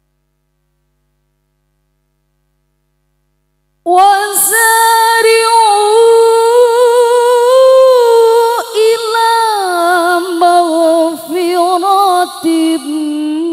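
After about four seconds of silence, a woman begins melodic Qur'an recitation (tilawah) into a microphone, holding long ornamented notes with a wavering vibrato and slow glides in pitch.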